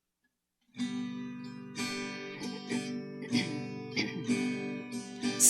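Acoustic guitar strumming and plucking the introduction of a song, starting about a second in after a brief silence.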